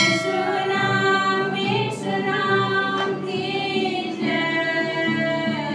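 A small group, led by women's voices, singing a Hindi Christian hymn together to a strummed acoustic guitar.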